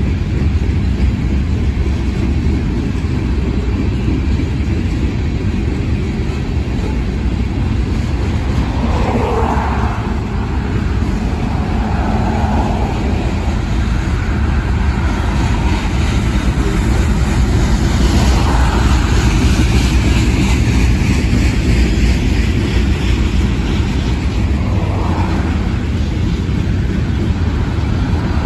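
Freight train of covered hopper cars rolling past, a steady rumble of wheels on rail. A road car drives by on the adjacent road, making the sound louder and hissier about two-thirds of the way through.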